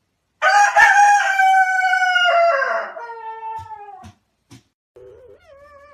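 A rooster crowing: one loud, long call lasting about three and a half seconds, its pitch slowly falling toward the end. A few short knocks follow, then a quieter, wavering call near the end.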